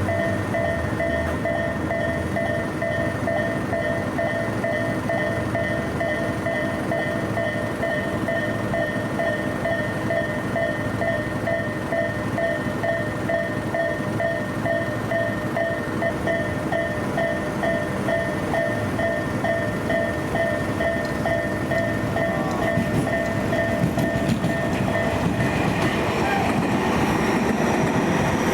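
Japanese level-crossing warning bell ringing in a steady repeating beat over the rumble of a slow-moving Tobu Tojo Line train. The bell stops about 25 seconds in, and the train's running noise then grows louder, with wheels clacking over rail joints and a high motor whine near the end.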